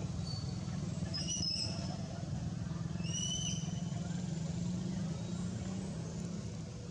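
A steady low rumble with two short, high-pitched squeaks about one and three seconds in.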